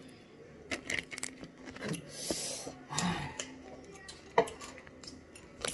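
Scattered light clicks and taps of food and dishes being handled on a kitchen counter, with a short rustle about two seconds in.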